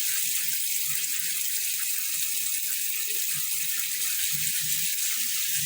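Water spraying steadily from a rainfall shower head and a handheld shower running at the same time, the diverter set halfway: an even hiss.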